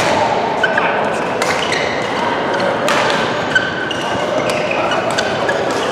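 Badminton rally in a large echoing hall: sharp racket-on-shuttlecock hits about every second and a half, with short squeaks of court shoes on the floor, over a steady murmur of voices and play from other courts.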